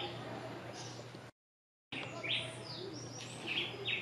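Birds chirping in short, rising, repeated notes, with a brief drop to dead silence about a second and a half in.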